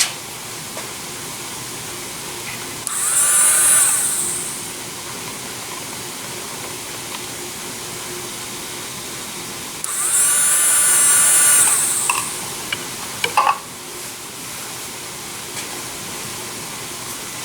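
Low-cost dental drill running twice at high speed, a high-pitched whine that spins up and winds down each time, the first run about a second and a half, the second about two seconds. A steady hiss runs underneath, and a few sharp clicks follow the second run.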